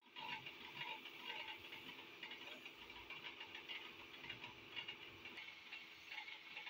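Steady hiss of compressed air from a gravity-feed paint spray gun. A low steady hum underneath stops about five seconds in.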